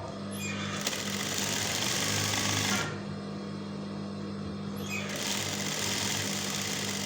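Electric domestic sewing machine running and stitching, louder and faster in two spells, first about a second in and again about five seconds in. The upper thread is not seated between the tension discs, so the thread snarls under the fabric.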